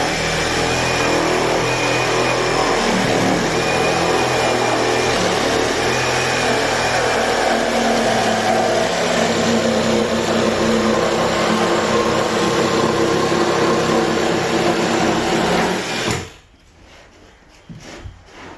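Reciprocating saw (sawzall) running under load as it cuts, a steady, loud motor and blade noise whose pitch wavers a little. It stops abruptly about 16 seconds in, followed by a few faint knocks.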